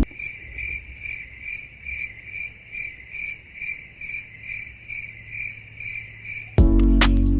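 Cricket chirping steadily, about two or three short chirps a second.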